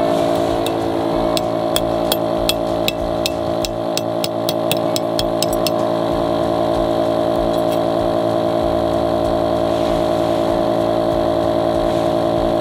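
Air pump motor running steadily as it inflates an inflatable tent, with a run of sharp taps, about three a second, during the first half.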